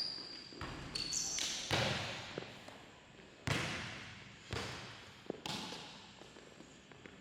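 A basketball bouncing on the court in a handful of separate, uneven bounces, each ringing out briefly and fading. The bounces grow fainter toward the end.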